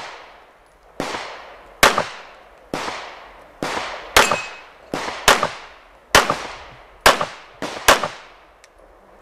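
9mm S&W M&P9 Pro pistol firing a string of about ten shots at roughly one a second, two of them in a quick pair near the middle. Each shot has a long echoing tail.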